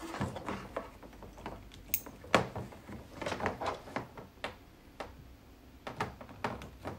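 Small clicks, taps and rustling of network cables and plug connectors being handled on a tabletop as a test cord is plugged onto a cable end; scattered irregular clicks, the loudest about two and a half seconds in.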